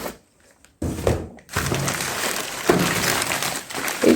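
Gift wrapping being pulled off a boxed item: after a short hush, irregular rustling and crackling of the cover with a few sharp handling knocks.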